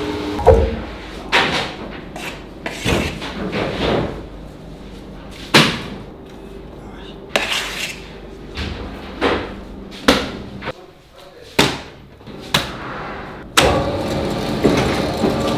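A spiral dough mixer's motor cuts off just after the start. About a dozen scattered knocks and thumps follow as dough is worked in the mixer's steel bowl. Near the end the mixer starts up again and runs with a steady hum.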